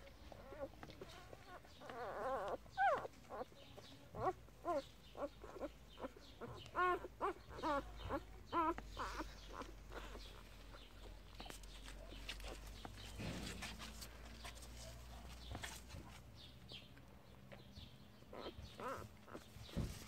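Newborn puppies squeaking and whimpering: a quick run of short, high, wavering cries between about two and nine seconds in, and a few more near the end.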